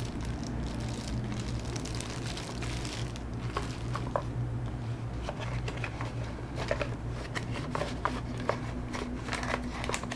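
Clear plastic packaging crinkling and crackling in the hands as it is handled and opened, with scattered sharp crackles throughout. A steady low hum runs underneath.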